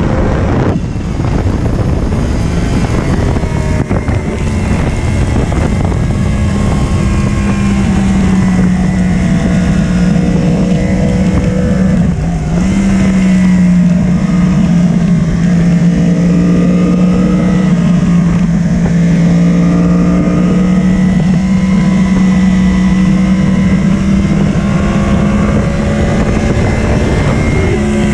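Yamaha sport motorcycle's engine pulling hard at track speed, recorded onboard with wind rushing over the microphone. The engine note dips briefly about a second in, at about four seconds and near the middle, then holds a steady high pitch.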